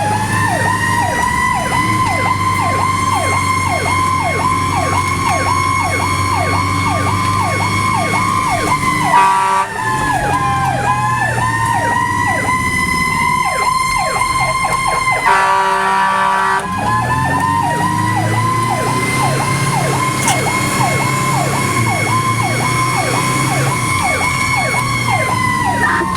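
Fire engine responding with sirens going: a wailing siren winds up, holds a steady pitch, then runs down and winds up again. An electronic siren yelps underneath at about three sweeps a second. The air horn sounds twice, about nine and fifteen seconds in, over the steady drone of the engine.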